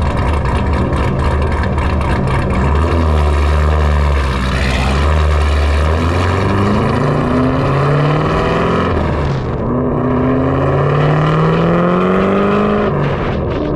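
Big-cam C7 Corvette 6.2-litre V8 with a choppy, lumpy running note, then accelerating hard: the pitch climbs, drops at an upshift, and climbs again before the throttle comes off near the end.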